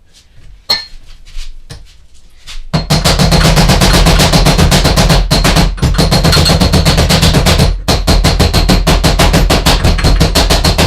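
A few light taps, then from about three seconds in loud background music with a fast, driving beat.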